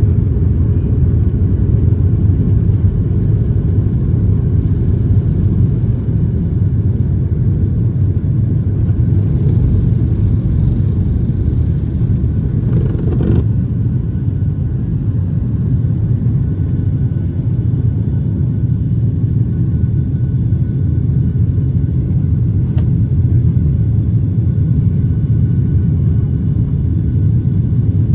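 Steady low rumble inside the cabin of a Boeing 737-800, its CFM56-7B jet engines and the airflow heard from a window seat over the wing during takeoff.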